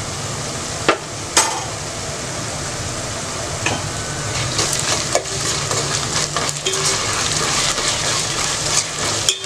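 Onions and ginger-garlic paste frying in hot oil in a pan, a steady sizzle, with a spoon stirring and knocking against the pan a few times.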